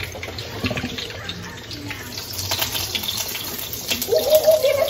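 Oil sizzling and crackling in a frying pan as eggs fry, a steady spitting hiss. About four seconds in, a person's voice comes in with a long drawn-out note.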